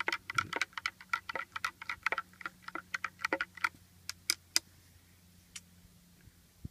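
Stainless steel chopstick stirring a hot drink in a cup, clinking rapidly against the sides for about three and a half seconds, then a few single taps.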